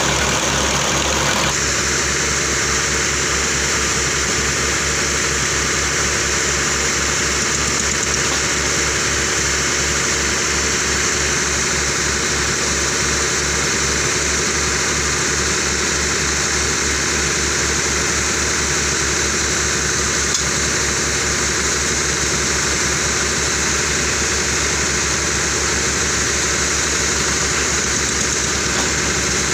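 Automatic clay brick extruding machine running steadily, its drive chugging with a fast, even low beat under a continuous hiss.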